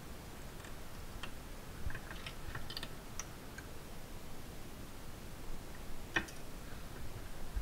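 Bench-mounted lever shear cutting sheet metal in short bites: a scatter of light clicks and ticks, with one sharper click about six seconds in.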